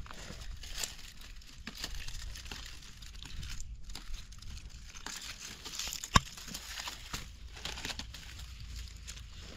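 Dry grass stems and dead leaves rustling and crackling as a hand pushes through them among wild phak wan shoots. There is one sharp snap about six seconds in.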